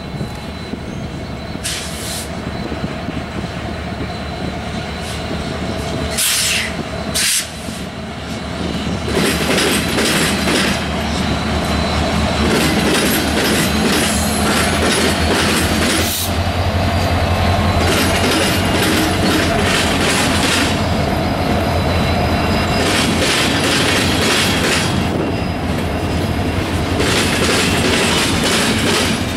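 Norfolk Southern diesel-electric freight locomotives draw near and pass with a steady low engine drone, which is loudest about halfway through. A long string of covered hopper cars then rolls by with clicking wheels and stretches of wheel squeal and rail hiss.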